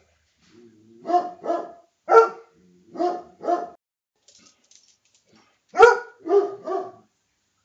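A dog barking: about eight sharp barks in short runs of one to three, with a pause of about two seconds before a final run of three.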